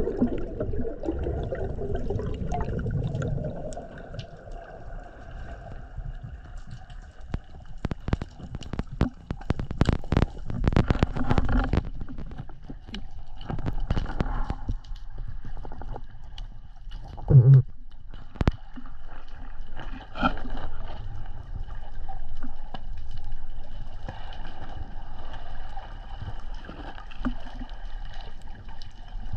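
Sea water sloshing and gurgling around a free diver at the surface. This is followed by a dense run of splashes and knocks about eight to twelve seconds in. After that comes the muffled, steady ambience of being underwater, broken once by a loud low thump a little past halfway.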